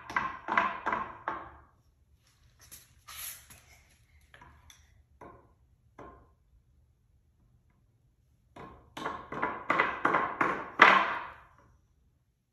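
A small hammer striking a wooden board in quick, even blows, about three a second, each with a slight ring. One run ends about two seconds in, a second run starts about nine seconds in, and a few lighter knocks fall between them.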